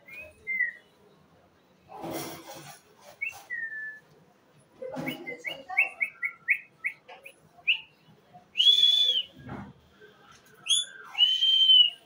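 Alexandrine parakeet whistling and calling: scattered short chirps, then a quick run of short notes at about four a second, then two loud, longer calls near the end.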